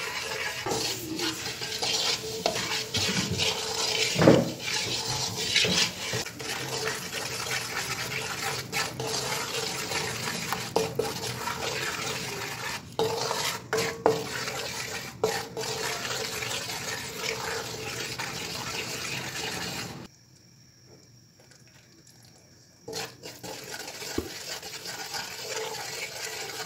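A spoon stirring and scraping wheat flour as it roasts in ghee in a metal pan, with repeated scrapes and knocks against the pan. The sound drops almost to silence for about three seconds near the end, then the stirring resumes.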